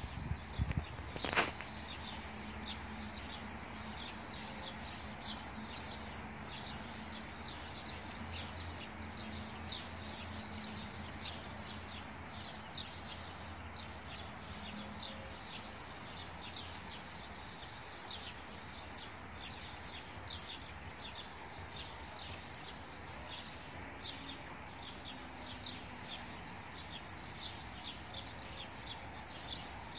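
Small birds chirping, a steady stream of short high chirps several times a second, over a low steady hum of outdoor background noise. A single sharp click sounds about a second and a half in.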